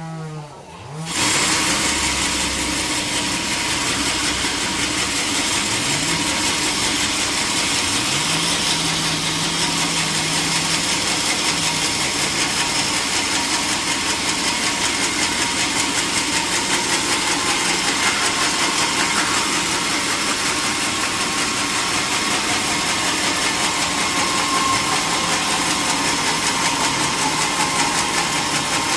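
Sawmill machinery running loudly and steadily, starting suddenly a little over a second in: the engine-driven saw working on a teak log.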